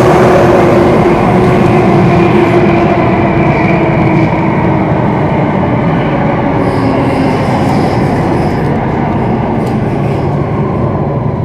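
Singapore MRT train heard from inside the carriage, running through a tunnel with a loud rumble and a motor whine that falls slowly in pitch. The sound eases off as the train slows for a station.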